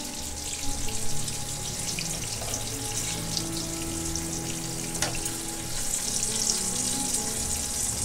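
Hot bacon grease sizzling and crackling in a frying pan, the fried sausage chunks just lifted out of it, with a single sharp click about five seconds in.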